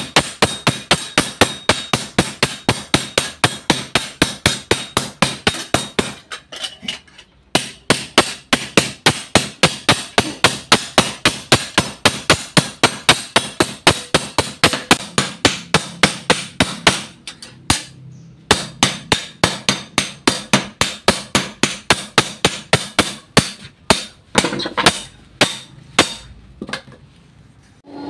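Hand-forging a machete blade on an anvil: three sledge and hand hammers striking the metal in turn, a fast even run of sharp blows about four a second. The hammering pauses briefly twice and stops shortly before the end.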